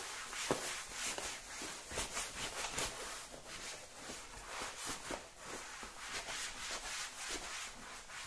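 Cloth rag wiping over a faux-leather chair back in quick repeated rubbing strokes, about two to three a second, drying off leather cleaner.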